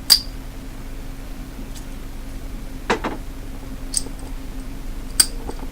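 Small metallic clicks of a lock pick probing the pin stack of a Master Lock padlock held in a false set under a tension wrench, searching for a security pin: four scattered clicks, the sharpest right at the start and just after five seconds, over a faint steady hum.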